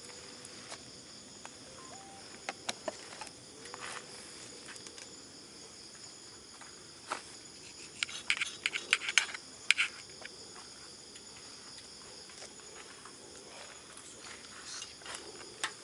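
Insects chirring steadily, with scattered clinks of metal utensils against a pan as a stir-fry is stirred and a knife and tongs are laid in it, the clinks densest and loudest about eight to ten seconds in.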